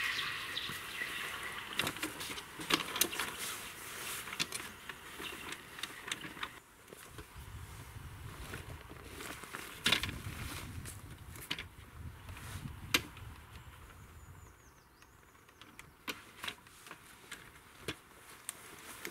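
Scattered clicks and knocks of a small folding bivvy table with metal legs being handled, its legs set and the table stood on the ground, with rustling movement in between.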